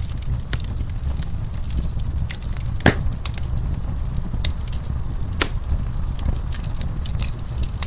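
Wood fire crackling in a fireplace: a steady low rumble of flames with many small sharp pops and snaps scattered irregularly, and two louder pops about three and five and a half seconds in.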